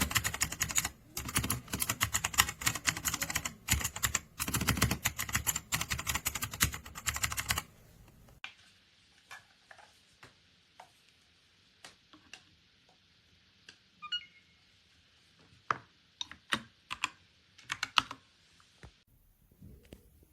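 Typing on a DIERYA T68SE 60% mechanical keyboard: fast, dense key clicks for about seven and a half seconds, then slower, scattered single keystrokes.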